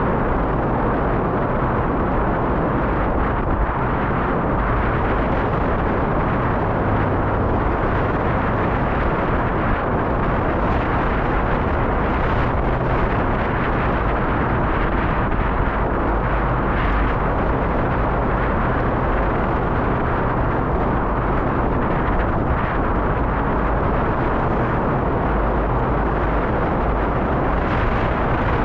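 Loud, steady wind noise buffeting the microphone while riding a bicycle.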